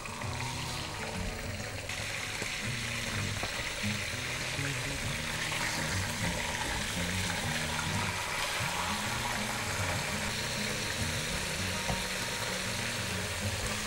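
Chicken pieces sizzling as they fry in oil in a wok; the sizzle grows stronger about two seconds in. Soft background music plays underneath.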